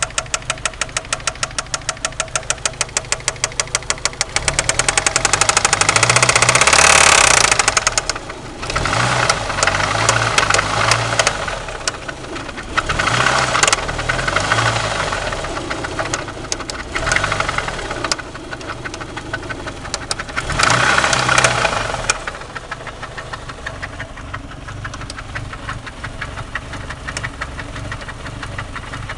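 1993 Eagle Talon turbo's 4G63 inline-four engine idling with a rapid, regular metallic knock, revved several times and dropping back to idle. The knock comes from a spun connecting rod bearing, with play between the rod and the crankshaft.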